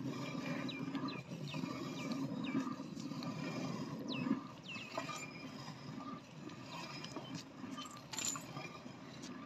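Milk squirting in jets into a half-full stainless steel bucket as a buffalo is milked by hand, a frothy hissing with faint metallic clinks from the pail.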